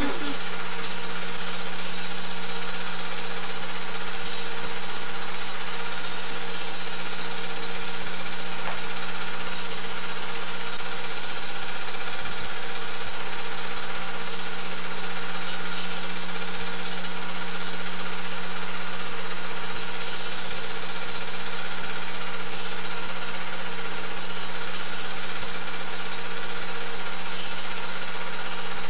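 Super 8 film projector running: a steady mechanical whir with a constant hum that does not change.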